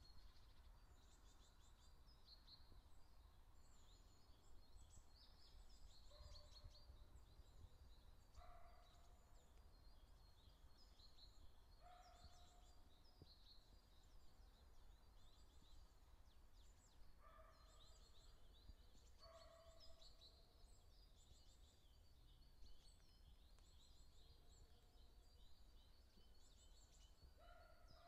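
Faint woodland birdsong: many small birds twittering high and thin, with a lower bird call repeating every few seconds, over a faint low rumble.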